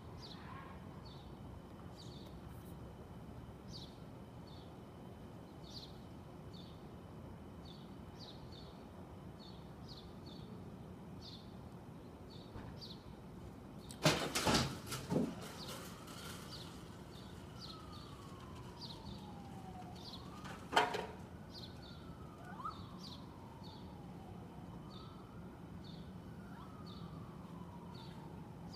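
Short high chirps repeating about twice a second throughout, with a faint siren wailing slowly up and down from about halfway on. Two loud clattering knocks cut through, one about halfway through and another some seven seconds later.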